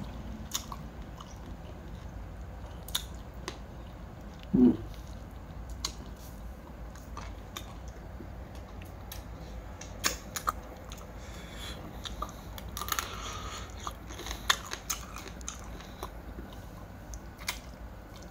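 A person chewing and crunching on raw crab salad, with scattered small clicks and crunches through the chewing. About four and a half seconds in, a short 'mm' from the eater.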